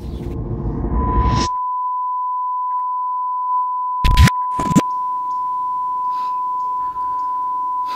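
Film sound design: a swelling rush of noise rises in pitch and cuts off abruptly about a second and a half in, leaving a steady high-pitched ringing tone that holds on, broken by two heavy thumps around four seconds in.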